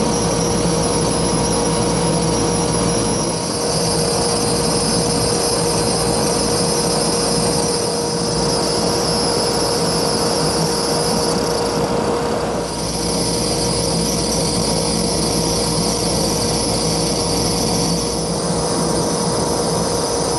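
CNC router spindle running with a steady high-pitched whine while a thin end mill cuts through a plastic pickguard sheet, over a constant hiss of cutting. The high whine briefly dips about twelve seconds in.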